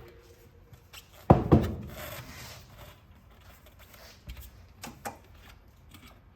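Two sharp knocks about a quarter of a second apart, then rubbing and a few light clicks later on: tools and parts being worked on a bicycle rear wheel hub during a bearing replacement.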